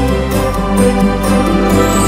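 Background music: held notes over a steady bass, with a light, quick ticking beat.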